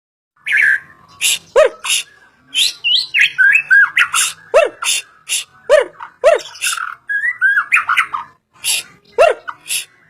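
A songbird singing a busy, varied song: short whistled notes and slurs, repeated notes that slide steeply down in pitch, and harsh rasping calls, in quick succession with short gaps, starting about half a second in.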